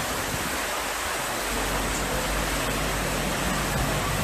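Floodwater rushing, a steady, even wash of noise.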